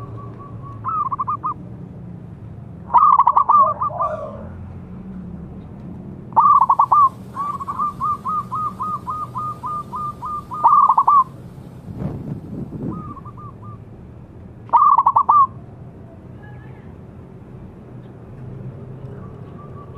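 Zebra dove cooing: short loud stuttering coo phrases repeated every few seconds, with a run of quick repeated notes, about four a second, near the middle and softer coos in between. A brief rustle about two-thirds of the way through.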